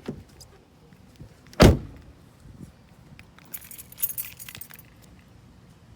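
A single heavy thump, followed about two seconds later by roughly a second of bright metallic jingling, with small clicks scattered around.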